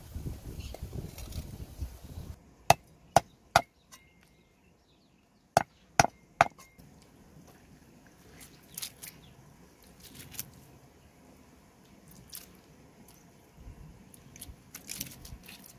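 A cleaver knocking sharply against stone: six strikes in two sets of three, about three seconds apart. Quieter scattered handling sounds follow as a frog is skinned by hand.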